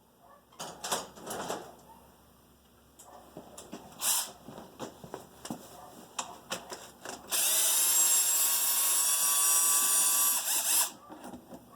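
A few clicks and knocks of tools and parts being handled, then a power drill running steadily for about three and a half seconds before stopping suddenly, backing out one of the 8 mm bolts that hold the dirt bike's fuel tank.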